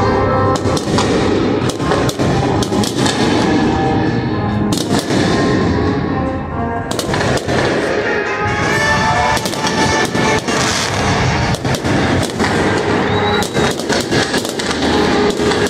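Aerial fireworks going off in a rapid string of sharp bangs and crackles, with music playing underneath.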